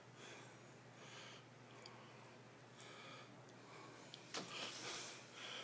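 A man's heavy breathing close to the phone's microphone as he walks, a breath every second or so, getting louder near the end.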